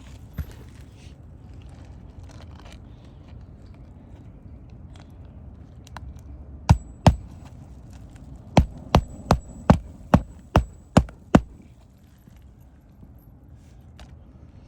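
Hammer striking roofing nails into asphalt shingles: two blows, then after a short pause a run of eight quicker blows, about two or three a second.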